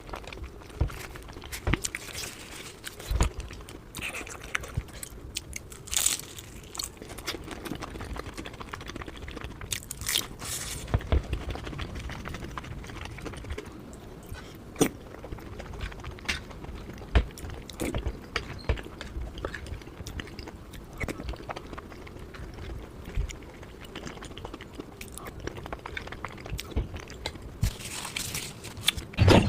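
Close-miked eating: a person chewing and biting into momo dumplings in spicy gravy, with wet mouth sounds and many short sharp clicks and smacks.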